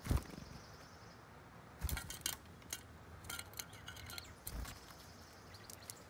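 A chestnut-backed chickadee landing with a soft thump of wings on a seed-covered wooden feeder close by, then pecking and picking through the seed: a string of irregular sharp taps and ticks. A faint, thin high note sounds for about a second near the start.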